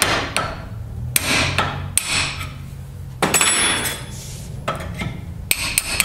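Hammer blows on a steel punch, driving the old pin out of a worn AMC Javelin door hinge clamped in a bench vise so the hinge can be rebushed. A series of irregularly spaced, sharp metal strikes, each ringing briefly.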